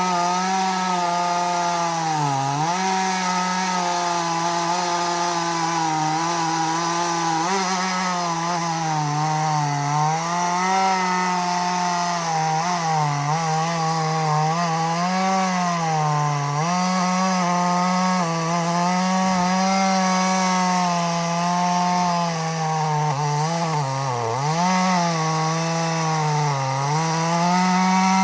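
Echo CS-4510 two-stroke chainsaw running at full throttle through wood, its pitch dipping and recovering again and again as the chain bogs under load in the cut. The saw has had some work done to it.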